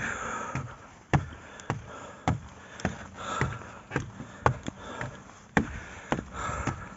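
A hiker's footsteps, about two sharp steps a second at an even pace, with heavy, hissing breaths in between.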